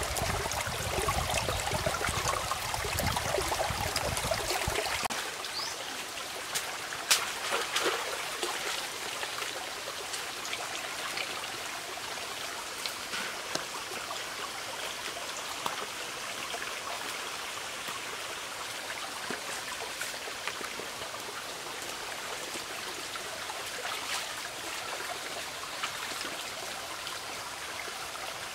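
Shallow stream running over rocks: a steady rush of water, fuller and louder for the first five seconds, then softer. A single sharp click about seven seconds in.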